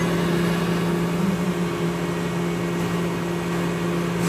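Mazak Integrex I-150 mill-turn CNC machine running steadily, its spindle humming as an end mill cuts clearance behind a flintlock tumbler. The hum holds two steady low tones over an even machining noise.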